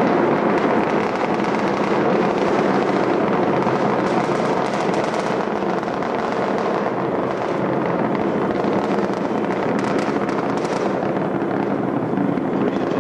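Space Shuttle Discovery's launch noise, a steady rattling rumble from its solid rocket boosters and main engines during ascent, unbroken throughout.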